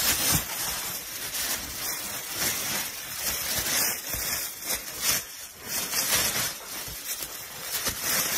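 Dry leaf litter and twigs rustling and crackling in irregular bursts as two bear cubs tussle on the forest floor.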